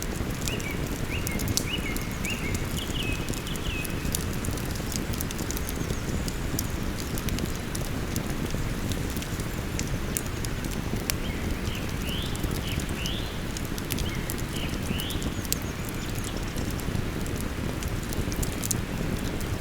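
Wood campfire crackling with scattered sharp pops over the steady rush of a flowing river. A small bird sings short chirping phrases near the start and again past the middle.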